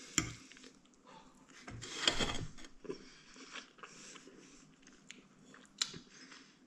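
A person chewing a forkful of shredded chicken taco bowl with corn, with a few sharp clicks of a metal fork against a ceramic plate.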